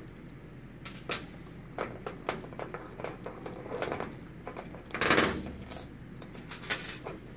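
Small steel bolts and lock shims clinking as they are taken off a cam gear and set down on a metal tabletop, with scattered light clicks. A louder metallic clatter about five seconds in, when the hex key is set down on the table.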